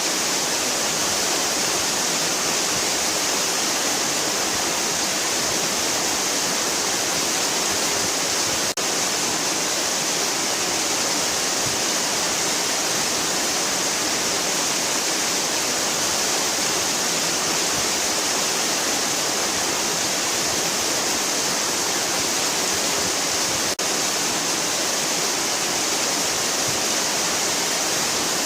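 Waterfall: a steady, unbroken rush of falling water, bright and hissy, with two brief momentary drops in level.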